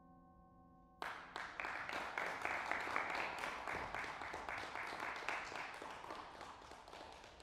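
The last ringing tone of a metal percussion instrument holds for about a second, then audience applause breaks out suddenly and slowly fades.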